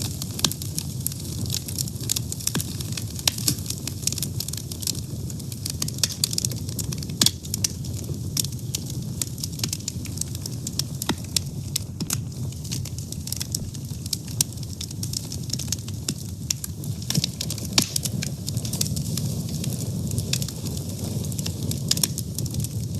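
Wood fire burning, with a steady low rush of flames and frequent sharp crackles and pops throughout.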